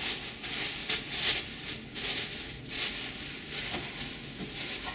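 Thin plastic carrier bag crinkling and rustling in uneven bursts as it is wrapped around a bottle.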